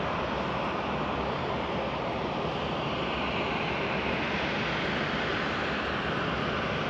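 Airbus A350-900's Rolls-Royce Trent XWB turbofans running at low taxi power, a steady, even rushing sound.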